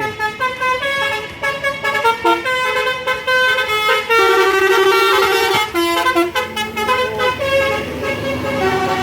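Bus telolet horn: a set of musical air horns playing a quick tune of short, stepped notes sounded together, with one longer held note about halfway through.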